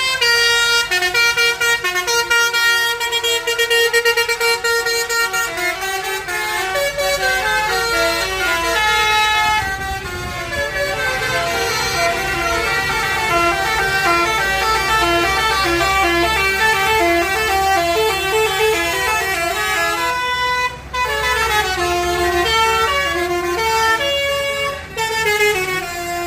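A bus's Basuri 'telolet' multi-tone air horn playing a melody of short, stepping notes, with the bus's engine running underneath.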